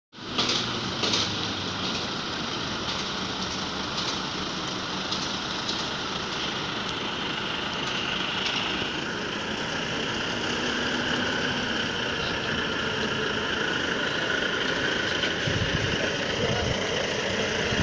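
Heavy truck's diesel engine running steadily as it pulls a low-loader carrying a tracked excavator past at a crawl, growing slightly louder over the second half.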